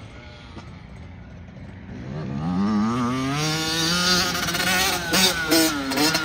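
Yamaha dirt bike engine: faint at first, then revving up and getting louder from about two seconds in, held at high revs, with a couple of quick throttle chops and pickups near the end as the bike goes over a jump.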